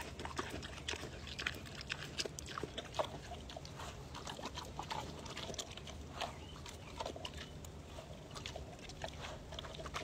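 A pig chewing a slice of watermelon: irregular wet crunching and clicking as it bites into the flesh and rind.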